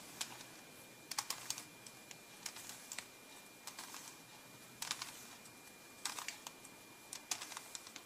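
Plastic layers of a 3x3x3 Rubik's Cube being turned by hand through an eight-move corner cycle (U R U' L' U R' U' L): short, faint clicks and clacks in spaced clusters, one for each quarter turn.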